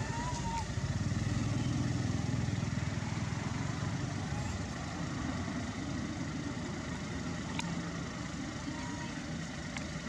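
A motor vehicle engine running close by, a steady low hum that is loudest for the first few seconds and then eases off a little. A short high chirp sounds right at the start.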